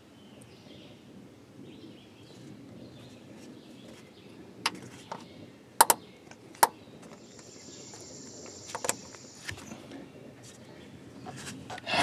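A few sharp plastic clicks and knocks as ignition-coil parts and their electrical connectors are handled and snapped back into place in the engine bay, with several seconds of quiet between them. A faint high steady hum sounds for a couple of seconds in the middle.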